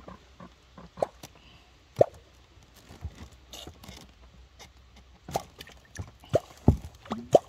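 Catfish clonk (vábnička) struck into the water, making about half a dozen sharp plops at uneven intervals, used to call wels catfish to the bait.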